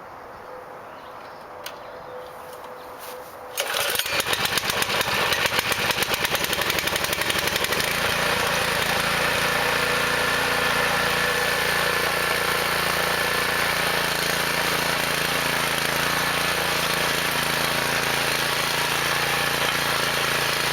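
Small single-cylinder four-stroke engine of a Champion 212cc front-tine rototiller running. It starts abruptly about three and a half seconds in, uneven and pulsing for a few seconds, then settles to a steady drone.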